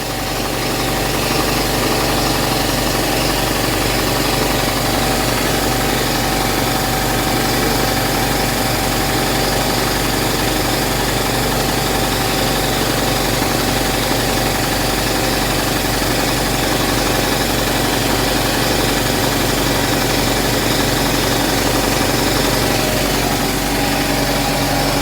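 Two electric air compressors, one of them a small pancake compressor, running together with a steady, loud motor-and-pump hum while building tank pressure.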